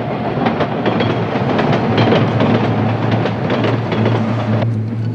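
Subway train running past at speed: a loud rumble with rapid clacking of wheels over rail joints. It cuts off suddenly near the end, leaving a low steady hum.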